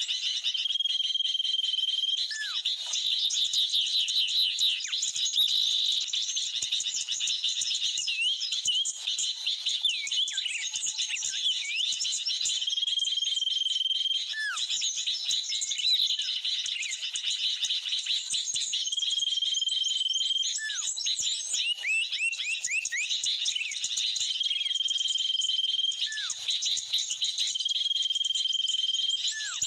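Bird-trapping lure recording played from an mp3: a dense, steady chatter of small birds mixed with agitated sooty-headed bulbul (kutilang) calls. A held high whistle and a short falling note recur several times in the same pattern, as a looped track does.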